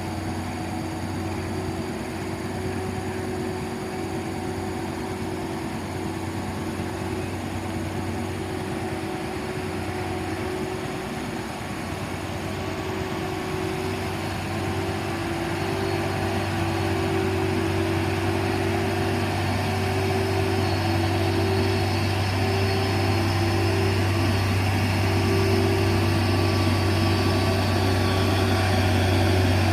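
Diesel truck engine running with a steady low drone, growing louder through the second half.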